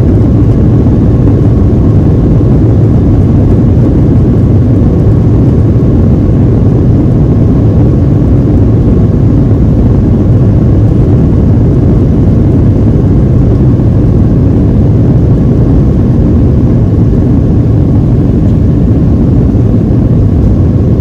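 Steady noise inside the cabin of a Boeing 737-700 airliner: its jet engines and the airflow make an even low rumble with a faint steady whine above it.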